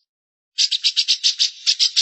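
A bird's rapid, harsh chattering call, about ten notes a second, starting about half a second in after a brief silence.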